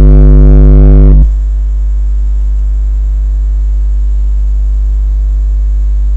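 Loud, steady electrical mains hum with a stack of buzzing overtones. It is louder and buzzier for about the first second, then settles to a lower, even drone.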